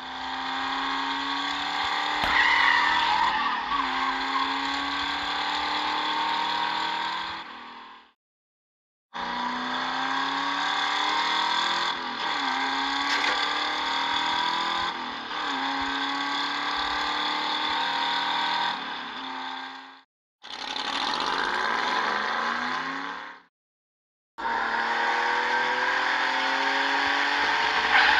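Dubbed-in race car engine sound effect, revving up through the gears again and again, in four separate stretches broken by short dead silences.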